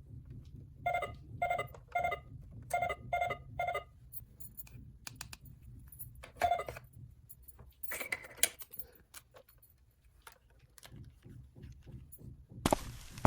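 Light clicks and taps of small hard objects being handled, opening with six short ringing taps about half a second apart, then scattered clicks. A burst of hissing noise starts near the end.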